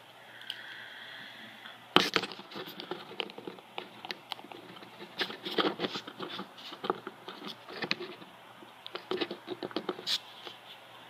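Irregular small plastic clicks, taps and scrapes as an action figure's small plastic parts are handled and worked free, starting with a sharp click about two seconds in.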